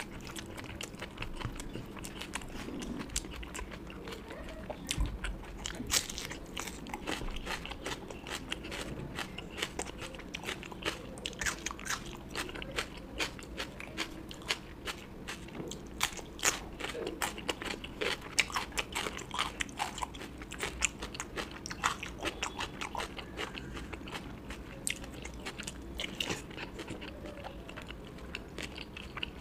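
Person chewing and biting food close to the microphone, a dense run of quick, crisp clicks and mouth sounds.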